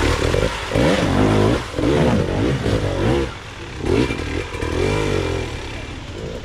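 Dirt bike engine revved in a series of short throttle bursts, its pitch rising and falling about five times, then easing off near the end.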